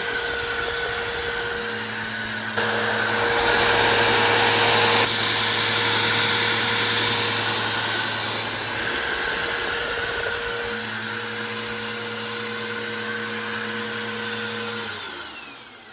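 Bissell PowerForce Helix upright vacuum cleaner running with a steady motor hum and rushing air, louder for a few seconds starting about two and a half seconds in. Near the end it is switched off and the motor winds down, its pitch falling.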